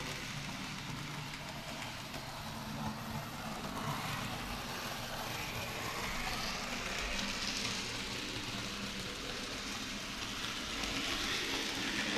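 Model railway train running on the layout's track: a steady hiss and rattle of small wheels on the rails and the whir of the electric motor, swelling a little as the train passes close.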